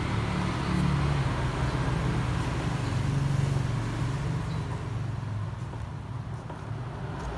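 A steady low rumble of a running vehicle engine, without a break.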